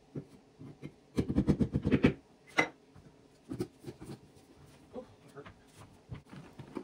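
Handling noise of a metal spoon, a plastic spatula and a plastic jar: a quick run of rattling scrapes and taps about a second in as solid coconut oil is knocked off the spoon, then a sharp knock and several lighter clacks as the jar's screw lid goes on and the utensils are set down on the counter.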